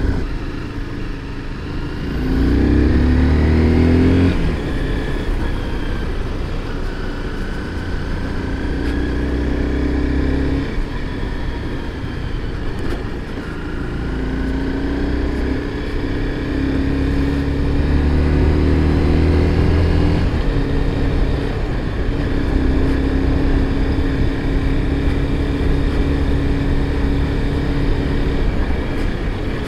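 Honda sport motorcycle's engine running under way, heard from the rider's seat. The revs rise in several pulls and drop back briefly between them, around four, ten, thirteen and twenty seconds in.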